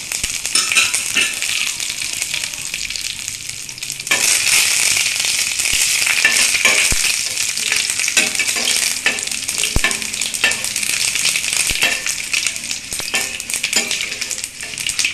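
Curry leaves and dried red chillies sizzling in hot coconut oil with popped mustard seeds in a stainless steel pan, the tempering stage of a thoran, with a metal spoon scraping and clicking against the pan as they are stirred. The sizzle gets louder about four seconds in.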